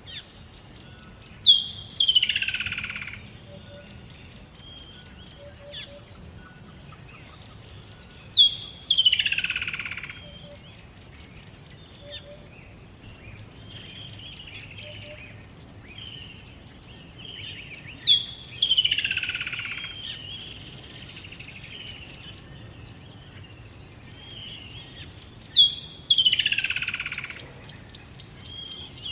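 Birds singing: one bird repeats a loud song four times, each a sharp high note followed by a falling trill that fades over about a second and a half. Softer chirps from other birds come in between, over a low steady hum, and a rapid run of high clicking notes near the end.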